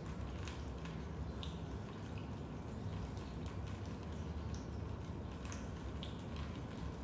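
Raindrops dripping into a basement: scattered, irregular drips and plinks over a steady low rumble.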